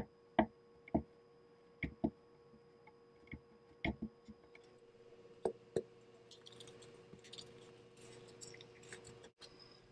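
Hand screwdriver driving small screws into a stainless switch plate: sharp clicks every half second to a second as the blade turns and re-seats in the screw heads. About six seconds in it gives way to a faint crackling rustle as blue painter's tape is handled and pressed over the wiring.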